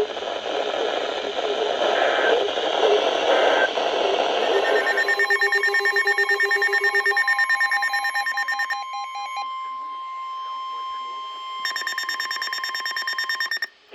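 Weather-radio emergency alert sequence: after about five seconds of hissy radio audio, the harsh digital buzz of the EAS data header starts, then a single steady NOAA Weather Radio warning alarm tone sounds for about three seconds, followed by another stretch of data buzzing that stops abruptly just before the end.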